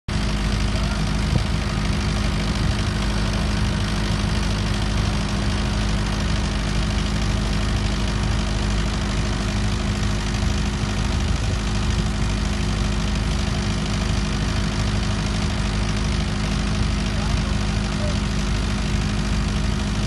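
Steady machine drone with a constant low hum, unbroken and even in level.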